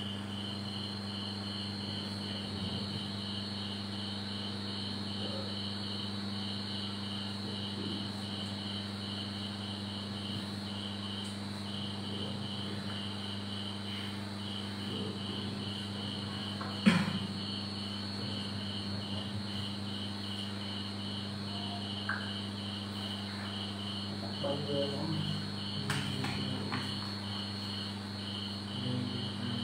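Crickets chirping in an even rhythm, about three high chirps a second, over a low steady hum. One sharp knock sounds about seventeen seconds in.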